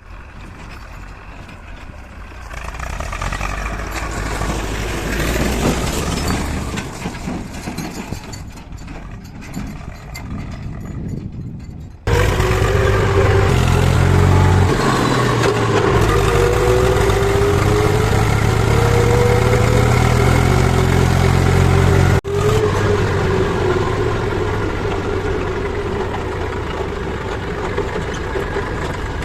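Heavy diesel machinery engines running. The sound changes abruptly twice, about twelve and twenty-two seconds in; the middle part is the loudest, a steady engine drone with brief rises in pitch.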